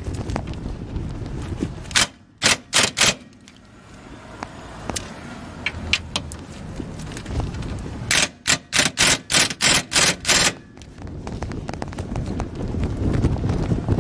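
Half-inch impact wrench hammering in short bursts on a seized rear lower control arm bolt: four quick bursts about two seconds in, then a run of about eight more from about eight seconds in. The bolt is barely moving.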